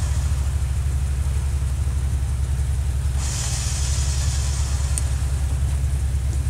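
Off-road 4x4's engine running at low speed, a steady low rumble, with a hiss joining about three seconds in.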